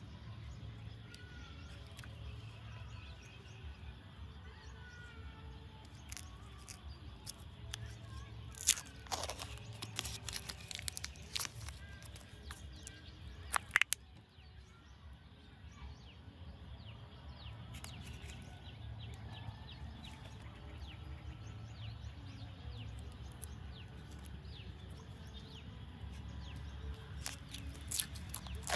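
Thin plastic jelly cups being handled and opened by hand: crackling of the plastic and film lids, with a few sharp clicks in the middle and more crackling near the end, over a steady outdoor background with faint bird chirps.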